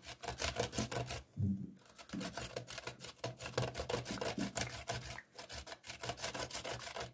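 Radish being grated by hand on a grater: quick, repeated rasping strokes, with short pauses about a second in and again a little after five seconds.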